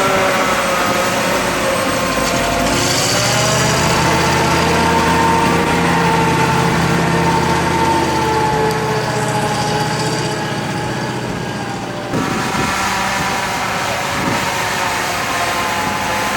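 Motor vehicle engine running, its pitch drifting up and down, with an abrupt change about twelve seconds in.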